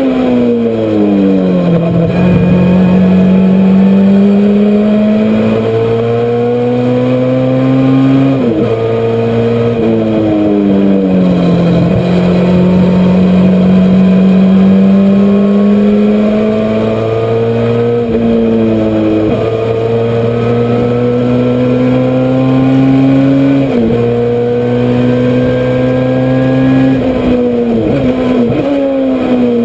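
Honda CRX race car's engine at full throttle, heard onboard, its note climbing steadily through each gear and dropping sharply at the gear changes several times, with a quick run of drops near the end.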